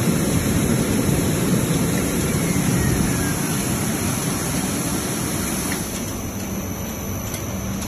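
Vegetable and fruit bubble washing machine running: a steady rushing noise of air bubbles churning the water in the tank, mixed with the machine's motor. About six seconds in, a low steady hum comes in.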